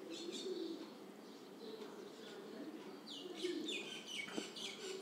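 Birds calling: a low, wavering cooing throughout, with bursts of high chirping that crowd together in the last two seconds.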